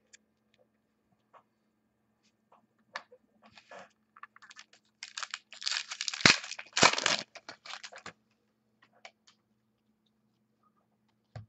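Trading cards and their packaging being handled: scattered clicks and scrapes, then a denser stretch of crinkly rustling from about five to seven seconds in, marked by two sharp taps.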